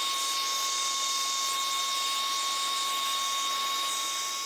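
Vacuum cleaner with a brush nozzle running steadily, a high motor whine over the rush of suction air, as it sucks dust out of an opened laptop.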